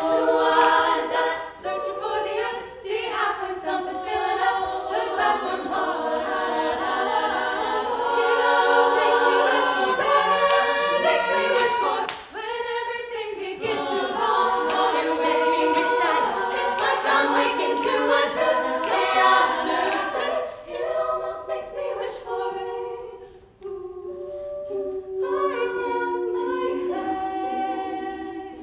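An all-female a cappella ensemble singing in close vocal harmony with no instruments, several voice parts moving together; the sound thins and drops quieter for a moment near the end before the full group comes back in.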